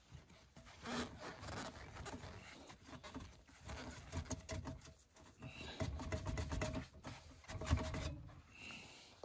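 A section of stainless steel stovepipe is twisted and worked loose from the pipe below by gloved hands, making an uneven rubbing and scraping of metal on metal and leather on steel. A thin squeak is heard for a couple of seconds past the middle.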